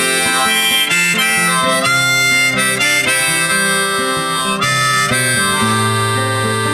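Background song in an instrumental break: harmonica playing a melody of held notes over guitar.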